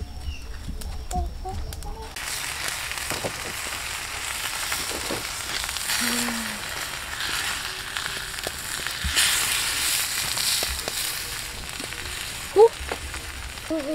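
Chicken quarters sizzling on a hot clay pot shard over a wood fire, a steady crackling hiss that starts suddenly about two seconds in. A short loud call near the end.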